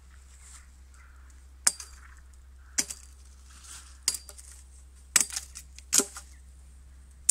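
Machete blade chopping the small side branches off a freshly cut willow rod, to clean it for wattling. About five sharp chops, roughly a second apart.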